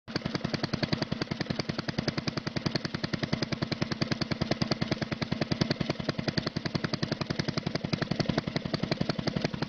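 Small engine idling with a steady, even beat of about ten sharp pulses a second.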